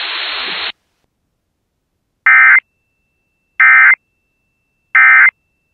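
Emergency Alert System end-of-message signal: three short, identical bursts of warbling digital data tones about a second and a half apart, marking the close of the alert. Before them, a brief stretch of stream hiss cuts off suddenly.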